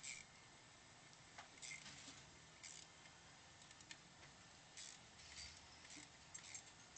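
Faint, irregular clicks and small rattles of a hand tool working fasteners under a car's front bumper, a few short clicks about once a second with a quick cluster near the end.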